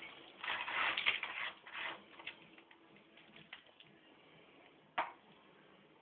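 Loose limescale flakes crunching and rustling as a hand scrapes and scoops them out through the opening of a water heater tank, busiest in the first two seconds, then a few light clicks. A single sharp knock about five seconds in.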